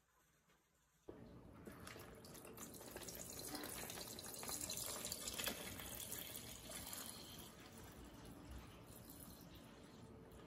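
Water running, with many small splashes and drips; it starts suddenly about a second in, swells, then eases off.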